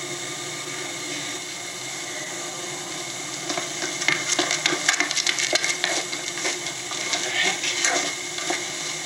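Steady hiss and hum of a film soundtrack played back on a TV and picked up off its speaker, with a run of short clicks and knocks starting a few seconds in.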